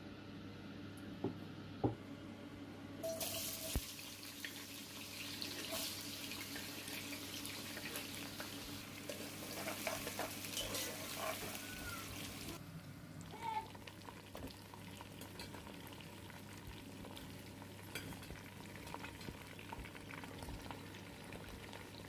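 Kitchen tap turned on and running into a sink for about nine seconds, then shut off abruptly, with a few sharp knocks just before it starts and faint clicks of utensils afterwards.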